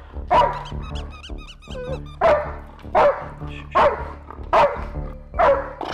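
German Shepherd barking over and over: six sharp barks, most about three-quarters of a second apart, with a high wavering whine between the first and second. It is the bark of a reactive dog worked up and 'spinning up'.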